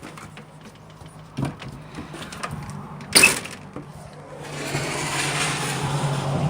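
Scattered light clicks and knocks, a single sharp bang about three seconds in, then a rushing noise with a low hum that swells near the end.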